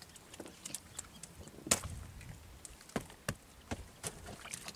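Scattered sharp knocks and taps on a wooden fishing boat's deck as the hand-line catch of snapper is handled, about half a dozen in all, irregularly spaced. The loudest comes a little under two seconds in.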